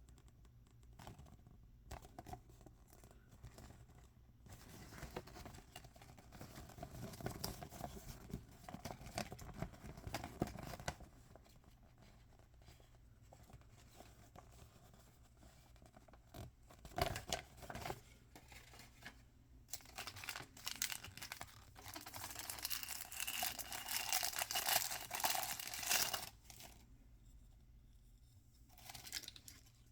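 Hands tearing and crinkling toy packaging during unboxing. There are two long stretches of rustling, one starting about five seconds in and one about twenty seconds in, with scattered small clicks and taps between them.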